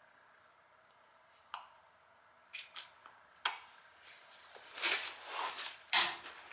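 A quiet stretch, then several sharp clicks and a burst of rustling and scraping: hands handling parts or tools. No burner motor or whine is running.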